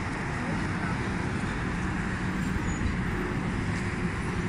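Steady road traffic noise from cars driving past.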